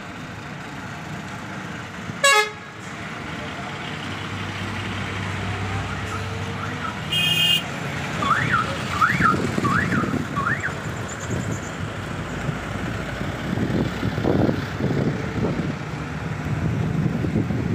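Bus engine and road noise, rising as the coach gets moving and heard from inside it, with a short loud horn blast about two seconds in, a brief high horn beep around seven seconds, and then a four-note warbling horn tune, each note sweeping up and back down.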